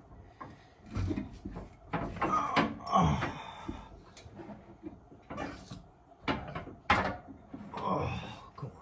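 Irregular metal knocks and clunks as a coil spring is worked into the rear spring seat of a 2014 Mustang, with the loudest knocks about three and seven seconds in.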